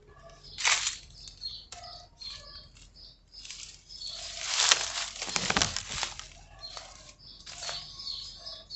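Backyard birds chirping in short scattered calls, while a car passes on the street, its noise swelling and fading between about four and six and a half seconds in.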